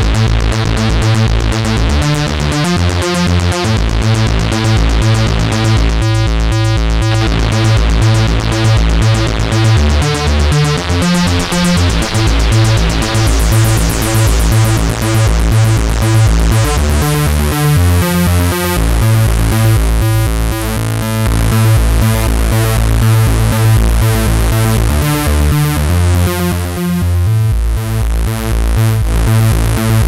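GForce Oberheim SEM software synthesizer playing an arpeggiated preset in up-down mode: a fast, continuous run of synth notes whose low notes shift every second or two.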